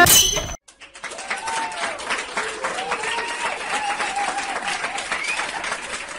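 Applause: many hands clapping, with a few faint voices. It starts about a second in, after a snatch of children's music cuts off.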